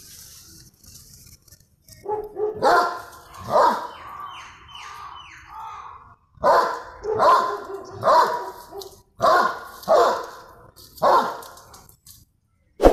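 Dogs barking: about nine loud, short barks in groups of two or three, a second or so apart, with a sharp click right at the end.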